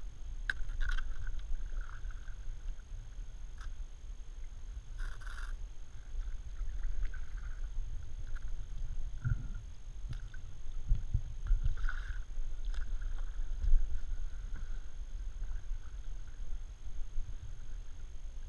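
Kayak paddle strokes in a shallow creek: soft splashes and drips from the blade over a steady low rumble, the clearest splashes about a second in, around five seconds and around twelve seconds.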